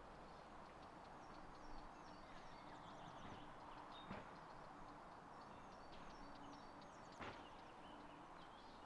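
Faint outdoor ambience with small birds chirping in short, repeated high calls, and two soft clicks, one near the middle and one near the end.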